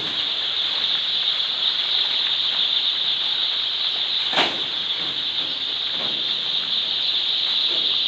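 A large flock of day-old chicks peeping all together, a dense, steady, high-pitched chorus, with a single knock about four seconds in.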